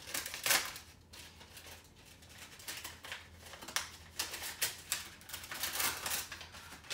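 Paper envelope being handled and opened by hand: a run of short, crisp paper rustles and crinkles, the loudest about half a second in.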